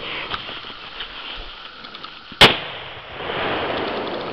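A single loud firecracker bang about two and a half seconds in, set off on a snow-covered log, preceded by light footsteps crunching in dry leaves and followed by a rustling noise for over a second.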